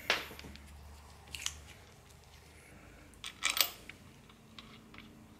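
A few light metallic clicks and taps from hand-fitting a connecting-rod cap and its bolts on an engine's crankshaft, with the loudest cluster of clicks about three and a half seconds in.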